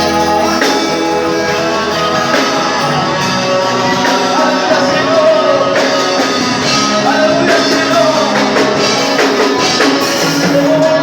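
Live worship band music with guitar, a singer's voice coming in and holding long notes.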